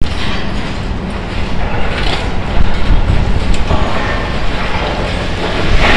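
A John Deere excavator tearing into a steel-frame building: a steady engine rumble under the rough crunch and scrape of debris. The noise swells louder about two seconds in and again near the end.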